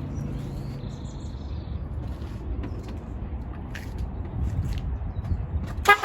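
Low steady background rumble with scattered small clicks and knocks. Right at the end a car's horn starts sounding in rapid short pulses, the alarm going off after the battery is reconnected.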